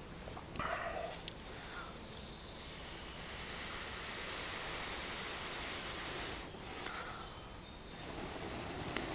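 Long, steady breaths blown into a smouldering tinder bundle to coax a hand-drill friction-fire ember into flame. The first blow starts about three seconds in and lasts about three seconds; after a short pause a second blow starts about a second before the end. A single sharp click comes near the end.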